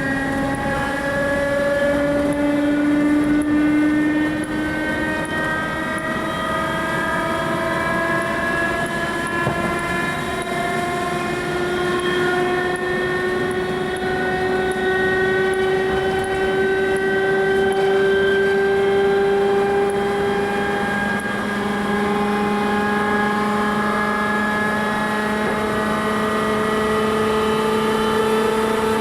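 Whine of an old English Electric traction motor on a 2EPB electric multiple unit, described as very old and worn, rising slowly and steadily in pitch as the train gathers speed, over steady running noise from the track.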